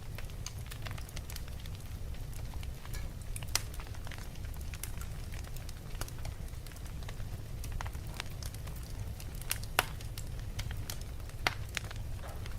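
Fire crackling with irregular sharp pops, the loudest about three and a half seconds in, near ten seconds in and about eleven and a half seconds in, over a steady low rumble.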